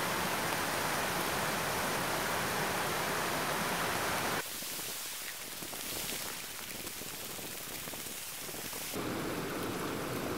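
River rapids rushing, a steady loud noise. About four seconds in it cuts to a quieter, thinner hiss, and near the end to the fuller rush of nearby flowing water.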